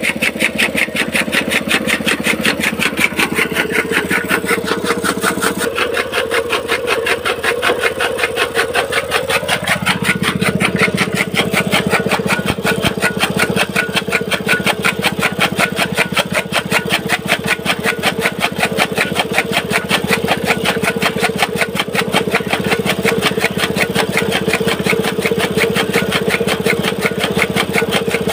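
Small petrol engine running steadily, belt-driving a chaff cutter (toka) that is chopping green fodder, with a rapid, even pulsing. The sound gets deeper about ten seconds in.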